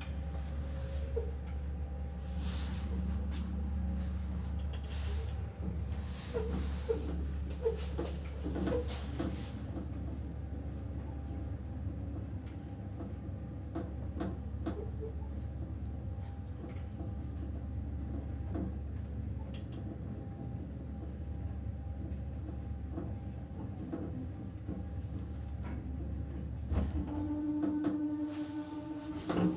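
Two-speed MLZ passenger elevator from 1993 travelling in its shaft: a steady low hum with scattered knocks and rattles. About 27 seconds in, a louder, higher hum sets in as the car drops to its low speed for levelling, which is loud on this lift.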